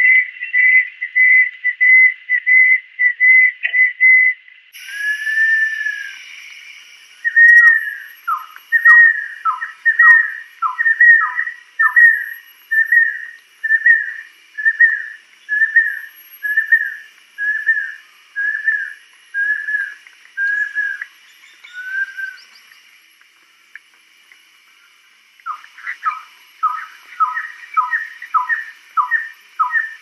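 Banded kingfisher song: runs of clear whistled notes. About five seconds in comes one longer whistle, then a long series of falling two-part whistles that slow and fade out; after a short lull, another run of falling whistles starts near the end. A faint steady high hiss runs behind.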